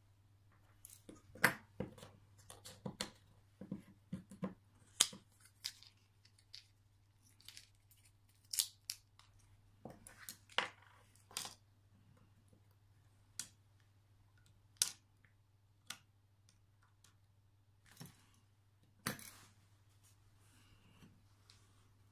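Irregular small clicks, crinkles and short tearing sounds from handling a button-cell battery with tweezers and peeling a new SR927 cell out of its card-backed blister pack. The loudest clicks come about a second and a half in, near five seconds, near ten seconds, near fifteen seconds and again near the end.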